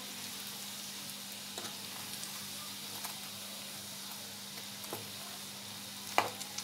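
Breaded bread rolls shallow-frying in hot oil in a small pan: a steady sizzle, with a few light clicks as the rolls are turned with a fork and one sharper click near the end.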